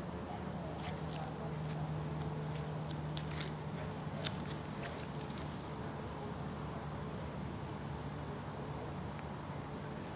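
A cricket chirping steadily, a high note pulsed in a rapid, even rhythm, over a low steady hum. A few faint clicks come between about three and five seconds in.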